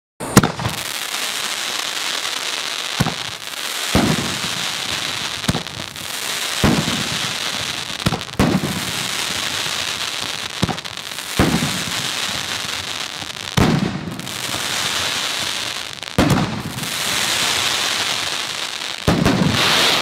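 T-Sky 'Don't Tread on Me' 500-gram consumer fireworks cake firing its 8 shots: a run of sharp launch thumps and aerial bursts, one every second or two, over a steady hiss from the burning effects.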